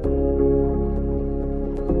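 Background music: sustained chords that change near the end.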